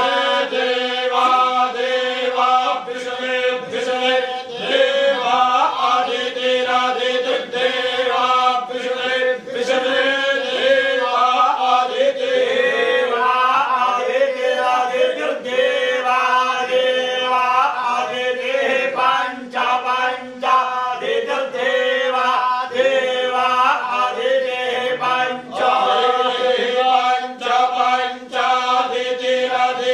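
A group of men chanting together in unison, a continuous syllabic recitation held on a nearly steady pitch.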